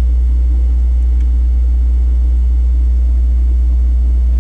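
A steady, loud low rumble that does not change, like an engine running.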